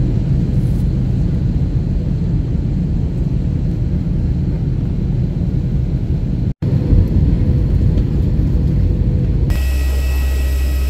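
Steady low rumble of a jet airliner's cabin noise, engines and airflow during the descent to land. About nine and a half seconds in it changes abruptly to a different steady low hum with several high, steady whining tones.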